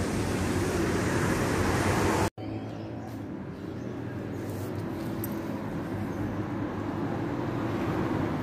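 Steady background street noise, a low rumble and hiss like road traffic. It cuts out for a moment about two seconds in and comes back quieter.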